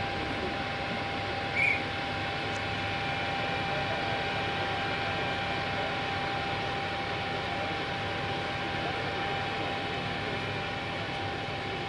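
Heavy machinery running steadily, a constant whine over a mechanical drone, with a short squeak about two seconds in.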